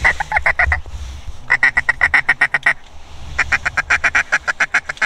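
A duck call blown in three runs of rapid, evenly spaced quacks, about eight a second: a short run at the start, then two longer runs.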